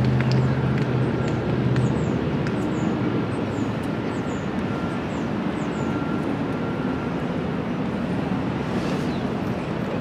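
Steady traffic noise, with a low engine hum that fades out after about two seconds. Faint, short, high bird chirps come and go through the middle.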